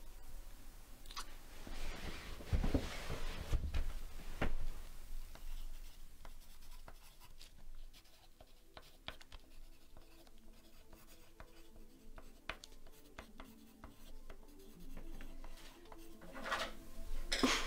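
Pencil scratching on paper in quick, light strokes: handwriting. It is preceded about two to four seconds in by a few louder rustles and soft low bumps.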